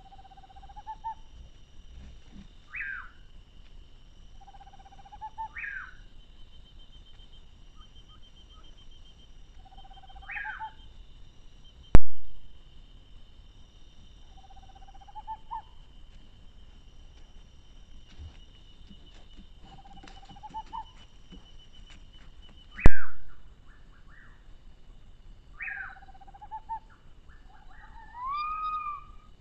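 A night animal's whistled call repeating about every three seconds: a short low note, then a higher note that sweeps up and down. A steady high insect drone runs underneath and stops a little after two-thirds of the way through. Two sharp clicks, the loudest sounds, come near the middle and again a little later.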